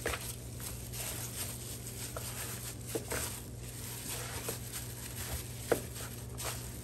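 Hands rubbing seasoning into raw turkey wings: soft, irregular rubbing with a few light clicks, over a low steady hum.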